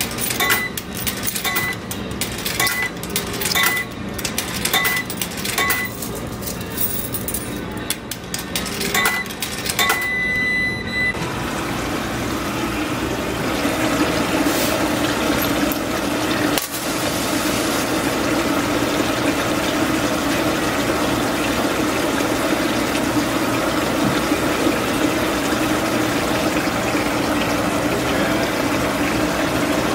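Coin-operated laundromat washing machine being started: a run of short electronic beeps from its controls, then, about eleven seconds in, water rushes steadily into the drum as it fills.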